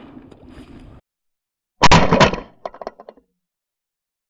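One loud shotgun blast about two seconds in, followed by a few faint short clicks. Before it, faint wind noise stops abruptly at about one second.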